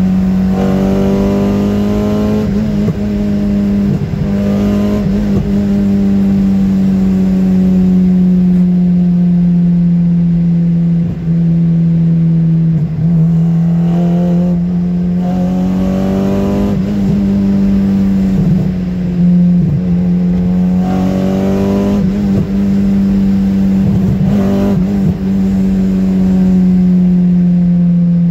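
Swapped Toyota 4A-GE 20-valve 'blacktop' inline-four in a 1989 Corolla GTS, heard from inside the cabin as the car is driven hard. The engine note climbs in pitch and drops back about half a dozen times as it revs up and eases off through the bends, over a steady low drone.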